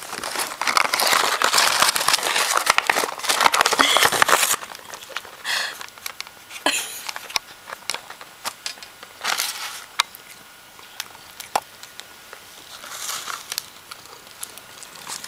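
Close crinkling and rustling, dense and loud for about the first four seconds, then broken up into scattered crackles and sharp clicks.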